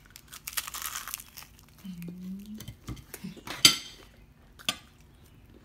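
Crunch of a bite into crispy fried chicken breading, a crackly burst about half a second in, followed by a short hum from the eater. Near the middle comes a sharp click, the loudest sound, with a lighter click about a second later.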